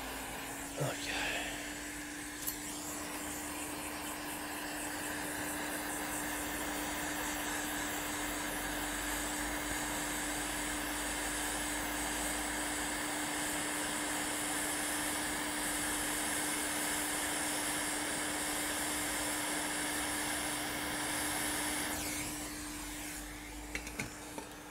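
Hot air rework station blowing steadily, a hiss of air over a steady fan hum, while heating the laptop motherboard to solder inductor coils back on. The airflow drops away near the end, leaving the hum.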